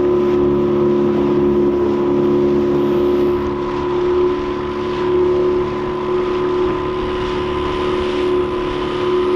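A small fishing boat's motor running steadily at trolling speed, with a constant engine hum over the rush of water and hull noise.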